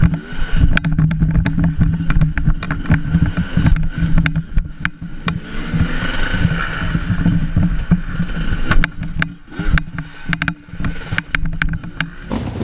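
Dirt bike engine running at low, uneven revs, heard from a camera on the rider, with many sharp knocks and rattles as the bike rides over the rough track.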